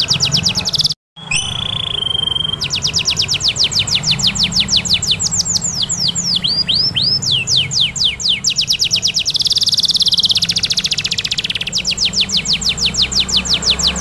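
Domestic canary singing long rolls of fast, repeated down-slurred notes, about ten a second. The song breaks briefly about a second in, goes on with a short steady whistle, and later turns into a dense, buzzy trill.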